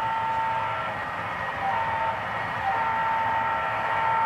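A model diesel locomotive's WOWSound decoder sounding a chime air horn through its small onboard speaker: a long blast, a short one, then a long one. Under it is a steady hiss of running noise.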